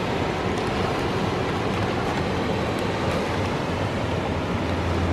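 Steady, unbroken rush of ocean surf breaking on a rocky shore, with a steady low rumble underneath.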